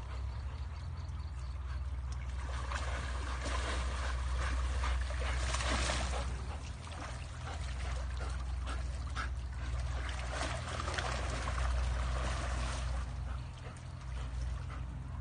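Water flowing and splashing in a muddy ditch, a steady rush that swells louder twice, over a constant low rumble.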